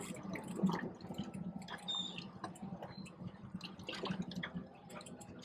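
Water slapping and dripping against a boat's hull in small irregular splashes, over the low steady hum of an idling outboard motor.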